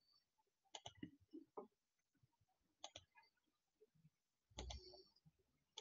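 Near silence with a few faint, scattered clicks of a computer mouse while a screen share is being set up.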